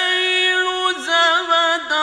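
A man's voice chanting Quran recitation in the melodic, drawn-out tajweed style, holding long ornamented notes that waver in pitch, with two short breaks, about a second in and near the end.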